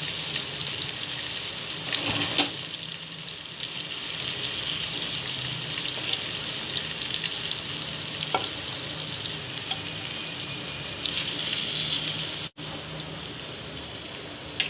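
Chicken pieces sizzling steadily in shallow oil in a kadhai, with a few light clicks of a metal utensil against the pan as the pieces are lifted out. The sizzle drops to a softer level suddenly near the end.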